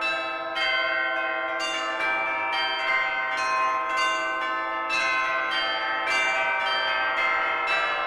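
Church bells pealing: several bells struck one after another about twice a second, each note ringing on into the next.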